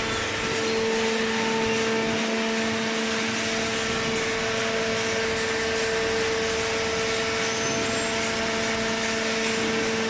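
Hydraulic carton baler's power unit running: the electric motor and hydraulic pump make a steady hum with a constant tone under an even rushing noise.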